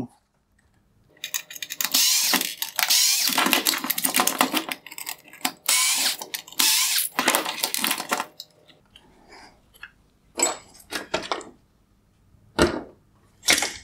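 Hard plastic and small metal parts of an LED headlight projector rattling and scraping as Torx screws are backed out and the lens is worked off its plastic body, a dense clatter for several seconds followed by a few separate clicks and knocks.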